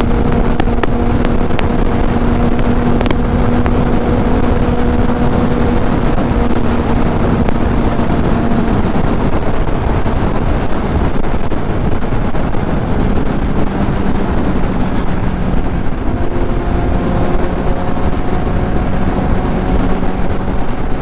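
Kawasaki Z800's inline-four engine cruising at highway speed under heavy wind rush, holding a steady note and then settling to a lower one about halfway through.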